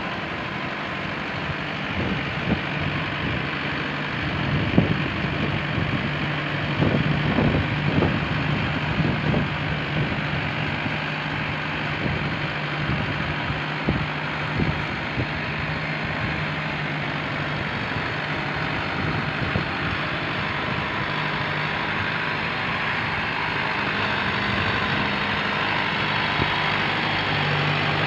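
Kubota MU5501 tractor's four-cylinder diesel engine running steadily as the tractor works through deep paddy-field mud, growing louder near the end as it comes closer.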